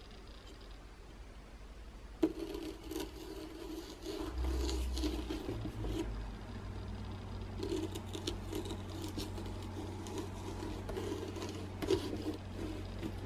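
A kitchen knife jabbed into a pumpkin's rind about two seconds in, then sawed through it in quick repeated strokes, pausing briefly in the middle before sawing on.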